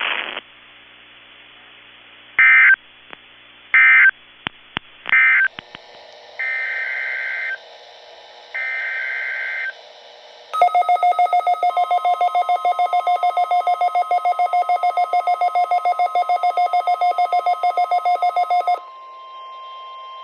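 Weather radio alerting tones: short warbling digital data bursts, three brief ones followed by two longer ones about a second each. Then about eight seconds of a loud, rapidly pulsing electronic alarm tone, with a faint steady tone near 1 kHz under it that runs on after the pulsing stops.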